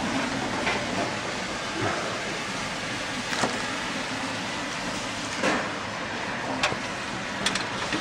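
Handling noise of a motherboard being lifted out of a steel PC tower case: a few light knocks and taps of the board and hands against the case, spaced a second or two apart, over a steady background hiss.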